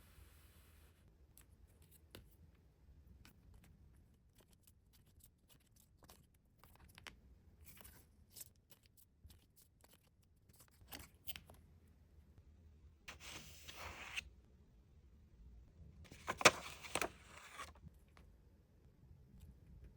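K-pop album packaging handled by hand: scattered light clicks and taps, then two longer rustling noises about 13 and 16 seconds in, the second the louder.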